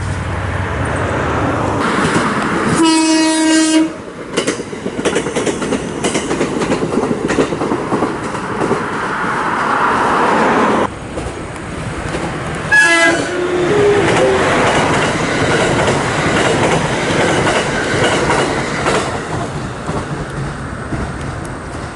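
A JR West 227 series electric train running along the line, with its horn sounding one steady blast of about a second a few seconds in. About thirteen seconds in, its music horn plays a short phrase of notes that step upward in pitch, over the steady train running noise.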